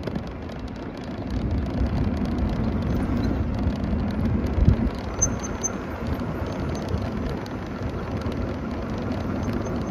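Wind buffeting the microphone over the low rumble of a small open vehicle rolling along pavement.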